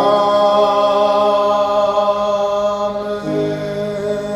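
Church congregation singing, holding the long final chord of a hymn. The lower notes step down to a new chord about three seconds in, and the sound eases off near the end.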